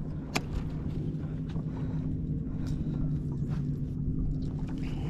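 A boat motor's steady low hum, with water and wind noise, and one sharp click shortly after the start.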